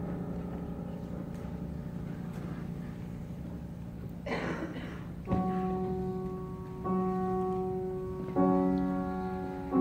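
Grand piano in contemporary chamber music: a held chord slowly fades, a brief noisy rustle comes about four seconds in, then single chords are struck about every one and a half seconds and left to ring.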